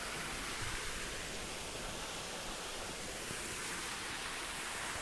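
Steady, even hiss of background noise with no other sound in it.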